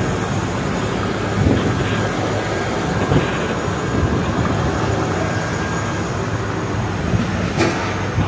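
Steady low rumble of city vehicles, with a single sharp clack about seven and a half seconds in.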